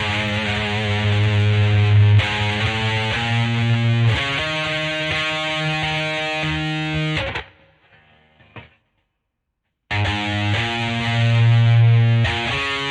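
Greco EG-550 electric guitar through a Peavey Vypyr VIP 2 modeling amp with distortion, playing sustained chords that change every second or two. The playing stops about seven seconds in and rings out, cuts to silence for about a second, then distorted chords start again.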